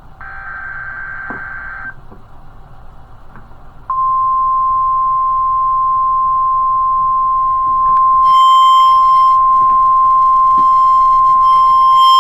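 Emergency Alert System weather-radio alert: a short buzzy digital data burst (the SAME header) ends about two seconds in. About four seconds in, the steady single-pitch 1050 Hz weather-radio warning alarm tone starts and holds, growing louder and harsher about eight seconds in.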